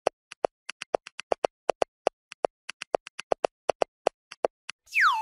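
Cartoon sound effect: a quick, uneven run of short hollow taps, like a wood block, about five or six a second. Near the end comes a loud swooping boing whose pitch dips and rises again.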